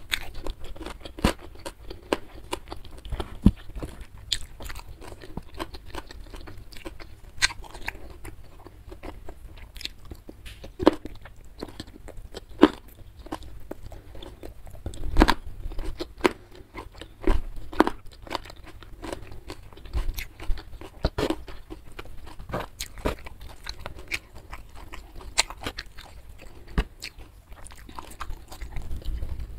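Close-miked chewing and biting of a rice meal eaten by hand, with many sharp, irregular clicks from the mouth and food.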